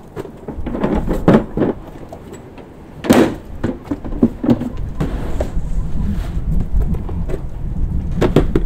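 Knocks and clatter of a large plastic feed bin and buckets being handled, with some rustling of chicken feed. There is one sharp, loud knock about three seconds in, and a low rumble underneath.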